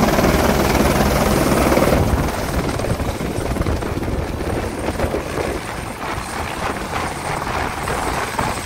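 Light helicopter landing on a helipad: loud, steady rotor and turbine noise, which drops in level and turns rougher and more fluttering about two seconds in as the helicopter comes down onto the pad.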